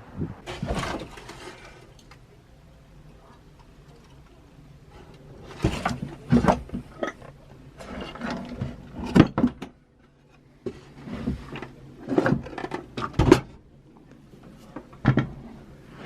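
Irregular knocks and clatters from hard objects being handled, set down and moved about, in several clusters with quieter gaps between.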